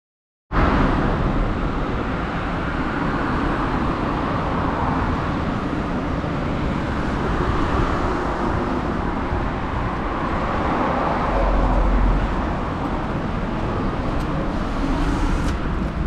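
Street traffic noise: a steady rush of passing road vehicles that starts abruptly about half a second in, with a low rumble swelling about three-quarters of the way through.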